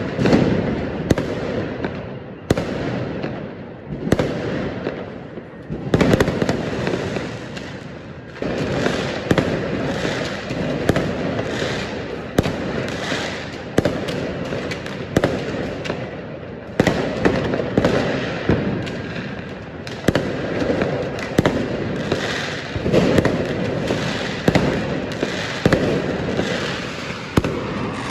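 Fireworks going off in a dense barrage: many overlapping bangs, several a second, with crackling and hissing between them.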